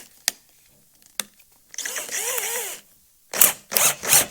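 Small electric drill being fitted with a bit: a couple of sharp clicks, then the motor briefly spun up and down, then several short rasping strokes as the chuck is worked.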